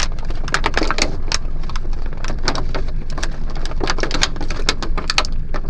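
Plastic packaging crinkling and clicking in dense, irregular crackles as an action figure is worked out of its box, over a steady low rumble.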